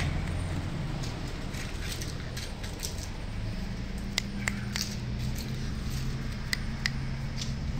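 Puppies scuffling on a stone-tiled floor, with a few sharp clicks of claws on the tiles in the second half, over a steady low hum.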